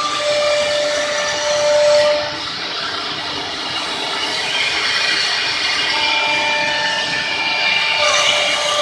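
Three-head CNC router running: several steady machine whines at different pitches over a continuous hiss. The whine pitches stop and shift every couple of seconds as the machine moves.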